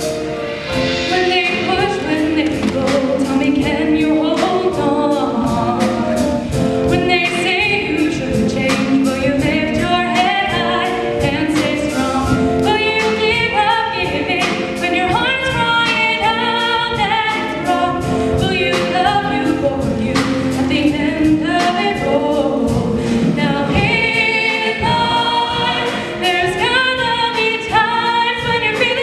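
Mixed show choir of young men and women singing together on stage, over a steady beat.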